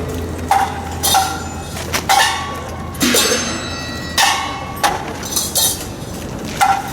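Repeated metallic strikes, unevenly spaced about once a second, each ringing briefly with a clear metallic tone, over a steady low hum.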